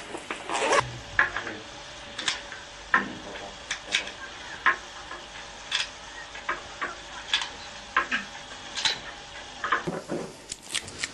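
Metal pistol cartridges, magazines and a handgun being handled and set down on a wooden table, giving irregular sharp clicks and knocks at roughly two a second.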